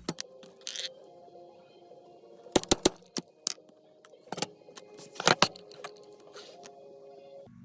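Sharp strikes of a mallet driving a 1/8-inch hole punch through veg-tan leather, in two quick clusters of about three blows each, with single lighter taps between.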